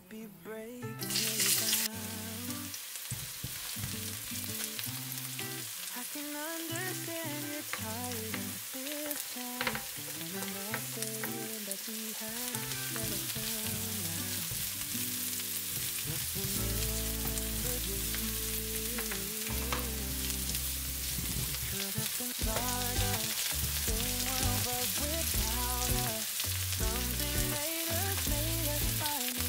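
Chopped onion sizzling in hot oil in a nonstick wok, starting with a loud burst about a second in as it hits the pan, then a steady frying hiss while it is stirred. Soft background music plays underneath.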